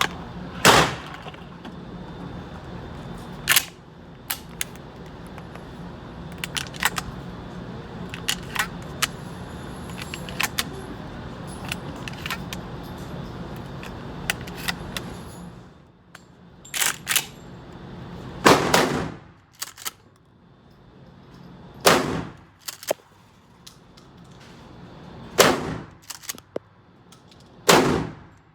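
Gunshots fired at a range: a loud shot, then another about three seconds later, with fainter sharp cracks scattered in between. In the second half, loud single shots come every two to three seconds, some of them in quick pairs.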